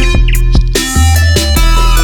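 Loud electronic soundtrack music with a steady beat and a deep bass hit about a second in.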